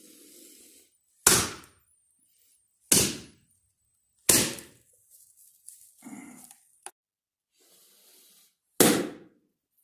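Hand-conditioning strikes: four sharp, loud smacks of a hand coming down onto a hand-sized ball resting on a brick. The first three come about a second and a half apart, and the last follows after a longer pause.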